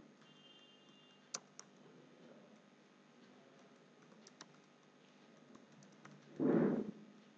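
Faint typing on a computer keyboard, scattered key clicks with a couple of sharper ones early on. A brief, louder muffled noise comes near the end.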